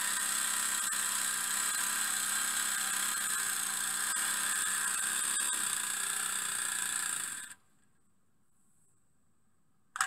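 Miniature three-cylinder steam engine running with a steady high whir. It stops abruptly about three-quarters of the way through, and a single sharp click follows near the end.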